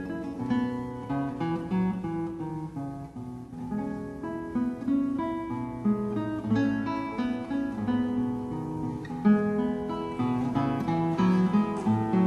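Acoustic guitar music: plucked notes and strummed chords ringing on without a break.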